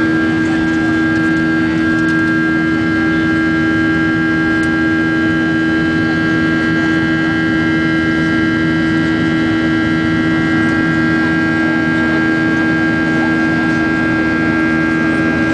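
Boeing 737-800's CFM56-7B turbofan engines running steadily after takeoff: an even drone with several steady whining tones over it, unchanging throughout.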